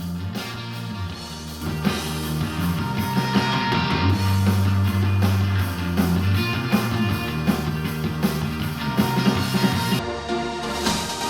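A rock-pop song with guitar, bass and drums, played back through a portable Bluetooth speaker and picked up by the microphone, with a steady beat and a strong bass line.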